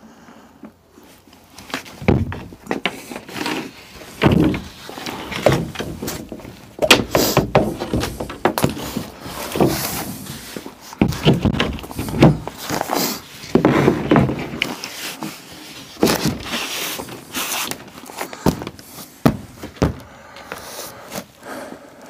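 Irregular knocks, thumps and rustling as an electrical outlet is worked through a square cutout in a plywood wall panel by gloved hands.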